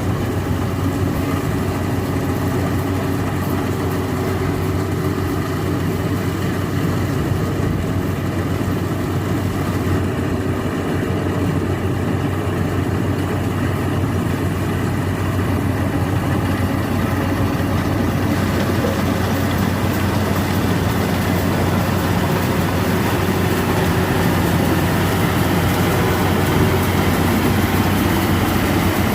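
Yanmar AW82V combine harvester's diesel engine running steadily with a deep, even hum. From about two-thirds of the way through, the noise grows a little louder and harsher.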